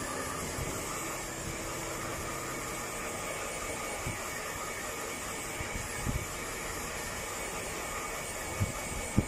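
Handheld hair dryer running steadily, blowing air through a Pomeranian's thick coat, with a few faint knocks.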